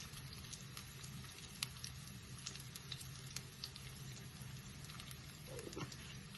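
Shallots and whole spices frying in ghee in a pan: faint sizzling with scattered crackles and pops, over a steady low hum.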